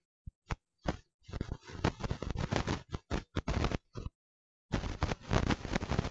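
Crowd applause, heard as dense crackling that breaks off into sudden dropouts of total silence several times.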